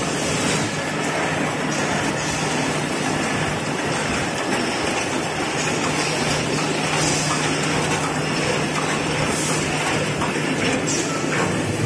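Toilet-roll conveying and film-wrapping machine running: a steady mechanical din over a constant low hum, with a few short hissy bursts in the second half.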